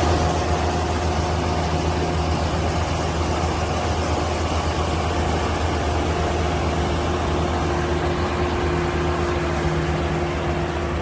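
Crawler rice combine harvester running steadily: a constant engine hum with a steady tone, no revving or changes.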